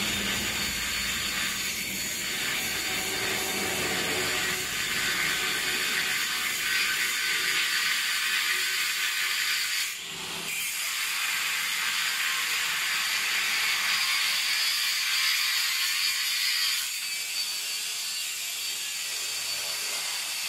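Electric arc welding on steel: a steady, harsh crackling hiss that breaks off briefly about halfway through and then starts again.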